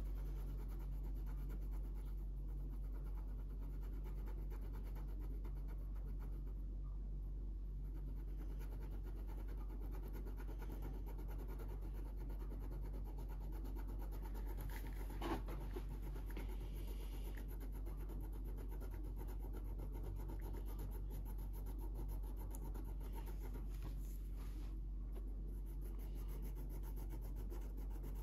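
Felt-tip marker scribbling back and forth on paper while colouring in, over a steady low hum, with a single sharp click about halfway through.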